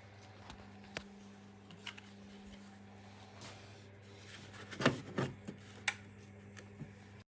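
A steady low hum with scattered small clicks and rubbing of handling: single clicks about one and two seconds in, a louder cluster of knocks about five seconds in, and a few more near the end.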